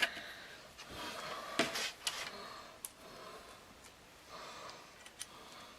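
Faint handling sounds: a few light clicks and a soft rustle as small pop rivets are picked out and fitted into a drilled hole in a piece of HDPE plastic.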